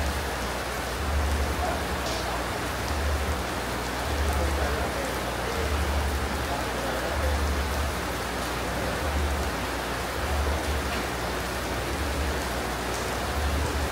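Steady hiss of rain falling on a tent roof, with a soft low thump recurring about every second and a half.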